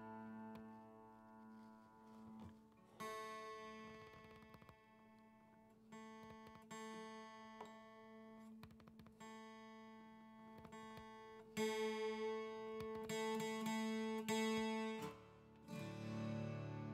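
Twelve-string acoustic guitar being tuned: chords strummed and left to ring while the pegs are turned. A fresh strum comes every few seconds, and a quicker run of strums falls about three quarters of the way through.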